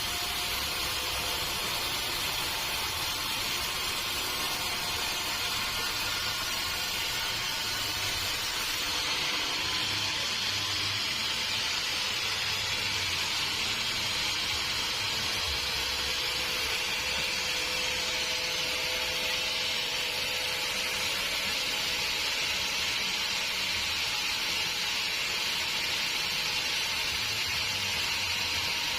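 Sawmill saw and machinery running steadily: a continuous hiss with faint steady whining tones, no pauses or breaks.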